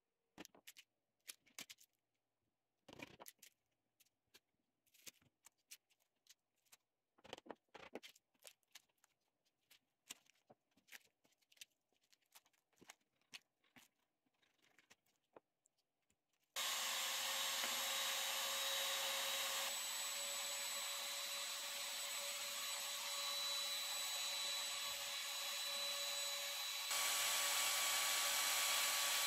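Irregular scraping strokes of a hand tool worked along a wooden form holding cured green resin. About halfway through, a trim router mounted on a pool-cue lathe starts running steadily, its bit cutting a green resin cue blank as it turns.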